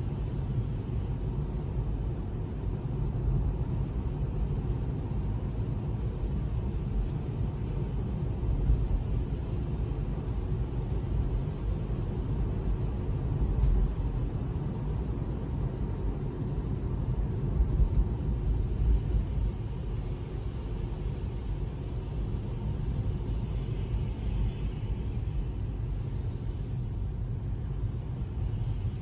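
Steady low rumble of tyre and road noise from a Tesla driving on a rain-wet road, heard inside the cabin, with faint ticks now and then.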